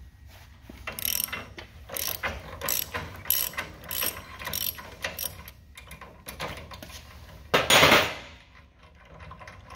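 Ratchet wrench with a 1-1/8 in deep-well socket clicking in repeated strokes as it backs the nut off a fifth-wheel hitch's main pivot bolt. A louder half-second burst of clicking about eight seconds in.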